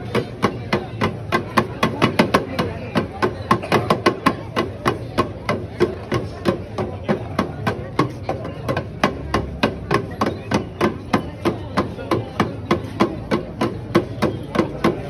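Ritual percussion at a Ganga Aarti, beaten in a steady rhythm of about three sharp strikes a second.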